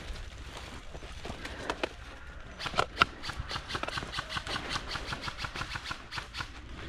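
Airsoft gun firing a quick string of shots, about six or seven sharp cracks a second for around four seconds, after a few single shots.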